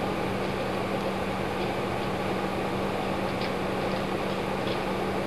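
Steady low room hum and hiss, with a few faint light ticks as a lock nut is spun by hand onto a bicycle-type brake caliper bolt.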